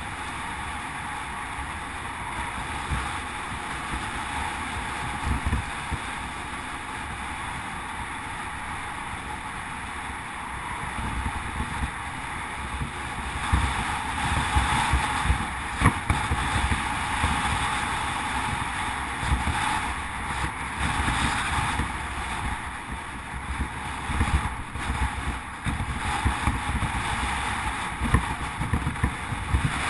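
Wind buffeting the microphone and tyre rumble from a bicycle riding on a tarmac road, a steady noise that grows louder about halfway through, with a few sharp knocks.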